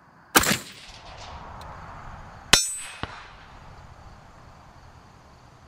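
A custom AR-15 with a .223 Wylde barrel fires a single shot. About two seconds later a hanging steel target plate is hit with a sharp clang that rings briefly.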